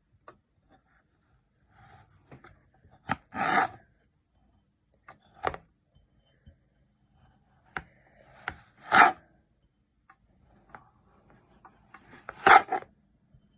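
Kinetic sand being sliced and squeezed: three louder gritty scrapes, each under half a second, come a few seconds apart, with scattered small ticks and clicks between them.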